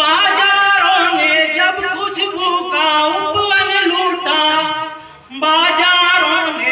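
A man singing a Hindi geet into a microphone, holding long wavering notes, with a short break about five seconds in before he sings on.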